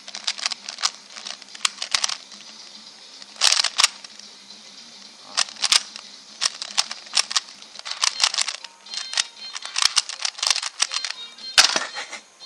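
Rapid plastic clicking and clacking of a 2x2 speed cube being turned in quick bursts of finger moves. A sharp slap near the end is the hands coming down on the Stackmat timer to stop the solve.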